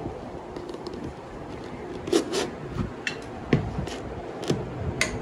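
A padded fabric liner being worked by hand into a motorcycle helmet's shell: several light knocks and scrapes, starting about two seconds in, over a steady background noise.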